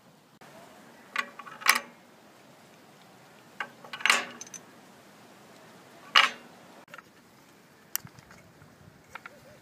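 Metal tools and hardware clinking and knocking as they are handled: about half a dozen separate sharp clinks, the loudest two near the middle.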